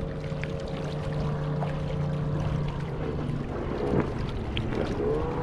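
Kayak drive motor running with a steady hum, water rushing along the hull. The pitch wavers in the second half and glides back up near the end.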